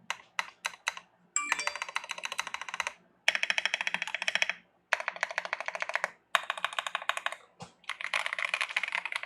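Mechanical keyboard typed on in fast runs of keystrokes, a sound test of its keycaps. A few separate key strikes open, then five quick bursts of clacking, each a second or so long, separated by short pauses.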